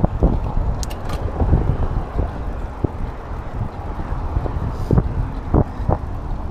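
Wind rushing over an action camera's microphone during a road bike ride, over a steady low rumble, with irregular short knocks scattered through.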